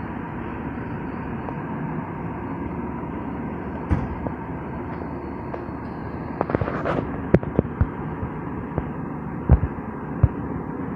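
A vehicle engine idling steadily, with scattered sharp clicks and pops, most of them clustered a little past the middle.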